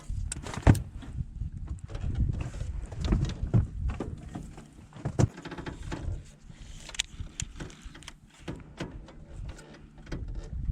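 Irregular knocks, clicks and thumps of fishing gear being handled in a boat, with a sharp knock about a second in, over a low rumble.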